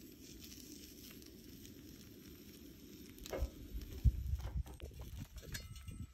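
Portable gas stove burner running with a low steady flame noise. About three seconds in, the knob is turned and the flame noise stops. A sharp knock follows about a second later, the loudest sound, then scattered knocks as the metal sandwich press is handled.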